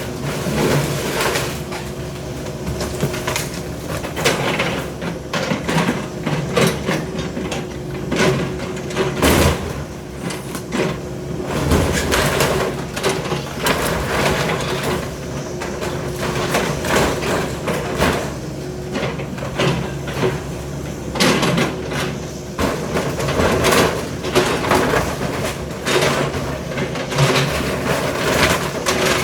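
Demolition machinery tearing down a building: an engine running steadily under repeated crunching, cracking and banging of breaking wood and debris.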